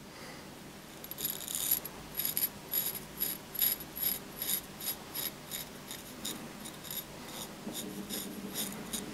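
Extrema Ratio Task C knife blade shaving hair off a forearm: a run of short, crisp scraping strokes, about two or three a second, starting about a second in. The edge still shaves cleanly after the cardboard cutting.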